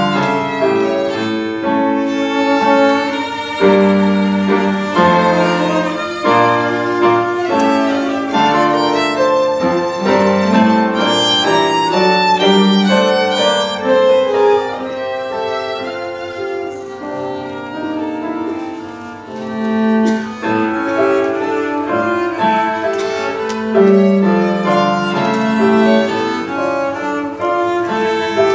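Piano trio playing classical music live: violin and cello bowing over piano accompaniment. The music eases to a softer passage a little past halfway, then grows louder again.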